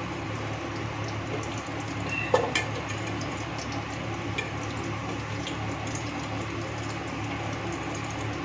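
Hot oil sizzling softly in a stainless-steel handi over a gas flame, with a slotted steel spoon scraping and clinking against the pan; one sharp clink comes a little over two seconds in.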